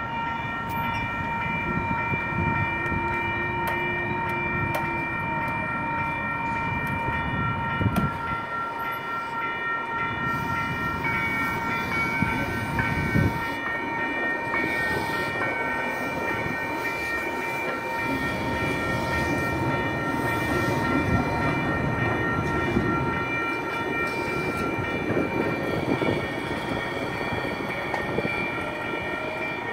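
Two WCH Gen 2 Type 3 electronic crossing bells ringing without pause at an activated light rail crossing, with more bell tones joining about ten seconds in. Under them a two-car Kinki Sharyo light rail train runs through the crossing with steady wheel and track noise.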